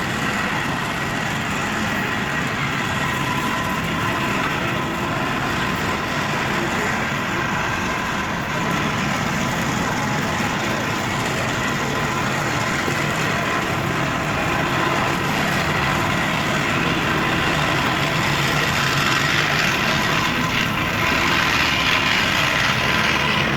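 City street traffic: vehicle engines running and idling in a steady mix of noise.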